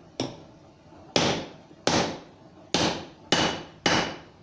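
Blacksmith's hand hammer striking hot steel to drive a half-round groove into a forged ring: one light tap, then five heavy, evenly paced blows, each with a short metallic ring.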